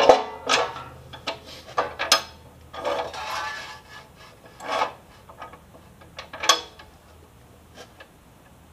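Sheet steel clanking and scraping as it is set into a chop saw's vise and the vise is cranked tight: a series of separate metallic knocks and rubs, with a longer scrape about three seconds in. The saw's motor is not running.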